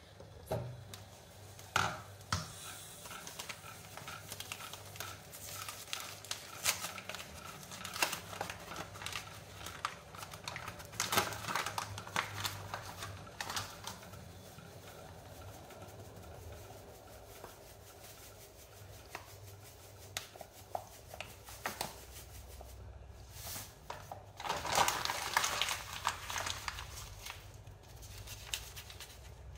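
Kitchen handling noises: a paper bag of maize meal rustling and crinkling as it is handled and folded shut, with scattered small clicks and knocks of a pot lid and utensils. The longest rustle comes near the end.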